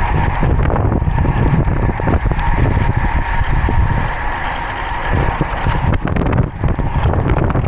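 Wind rushing and buffeting over an action camera's microphone, with road-bike tyre noise on rough asphalt, on a fast descent. The rumble eases briefly about four seconds in, then comes back.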